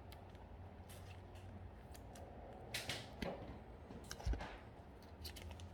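Panini Prizm football trading cards being handled: faint clicks and scrapes of card stock, a short rustle just before three seconds in and a soft thump a little after four seconds.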